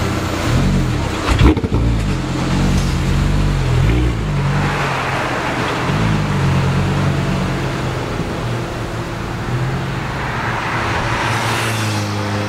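Audi R8 GT's 5.2-litre V10 revving and pulling away, its pitch rising and falling several times, with a sharp crack about a second and a half in. It then settles into a steadier, lower drone.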